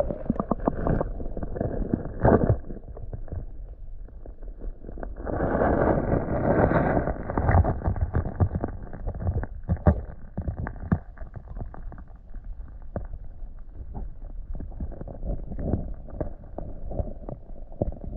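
Muffled underwater sound from a camera submerged in a pond: dull water noise with many knocks and clicks, swelling into louder swishing water movement about five seconds in.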